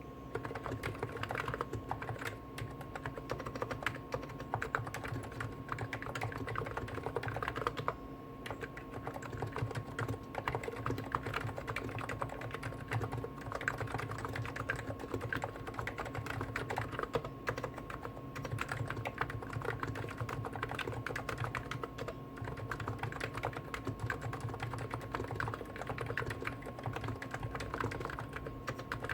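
Continuous typing on two Hansung GTune electrostatic capacitive keyboards at once, a CHF4 Snow White with 50 g switches and a CHF7 OfficeMaster with 55 g switches. The keystrokes overlap into a dense, unbroken run of soft key thocks over a faint steady hum.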